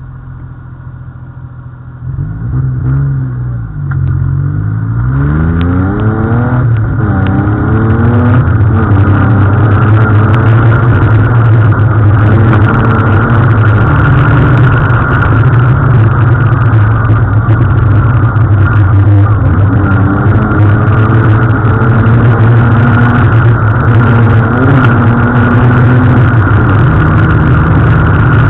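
ALP 800 off-road buggy's engine: running quietly for the first couple of seconds, revved up and down a few times between about two and seven seconds in, then held loud and steady while driving, its pitch rising and dipping now and then.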